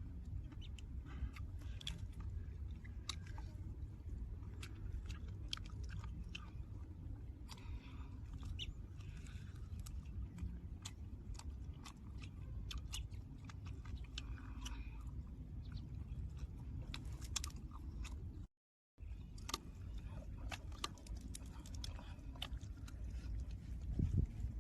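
A person chewing and biting food, with many sharp mouth clicks scattered throughout, over a steady low rumble. The sound cuts out for a moment about two-thirds of the way through.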